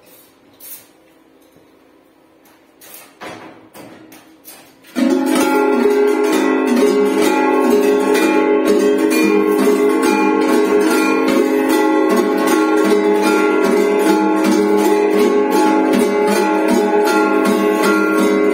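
Large hanging animal bells, sheet-iron cowbells and brass goat bells, clanging together in a dense, steady jangle of many overlapping ringing tones. It starts suddenly about five seconds in, after a few faint knocks.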